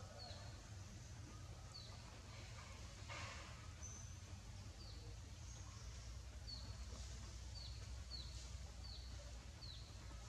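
Faint outdoor ambience: a small bird repeats a short, high, downward chirp about once a second over a steady low rumble, with a brief rustle about three seconds in.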